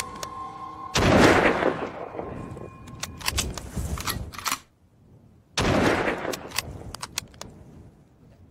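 Bolt-action rifle fire: a loud shot about a second in, then scattered sharp cracks, a brief lull near the middle, and another loud shot followed by more cracks.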